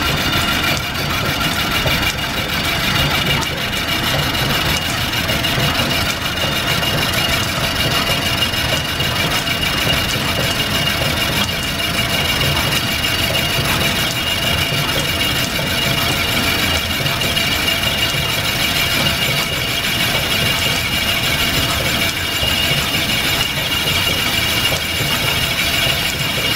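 Old lathe running steadily, turning a hit-and-miss engine piston, with a constant machine hum and a steady high whine.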